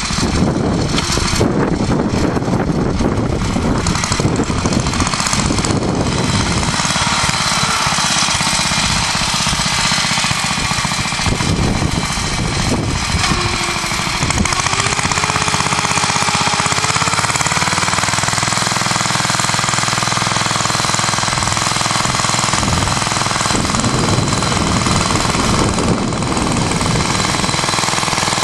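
1947 Clifford Mk1 walking tractor's JAP engine running loud and steady under load as it pulls a plough through the soil.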